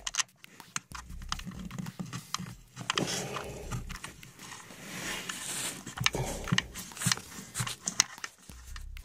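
Close handling noise: rubbing and scraping with irregular light clicks as a hand works a bolt into an engine-mounted valve by hand.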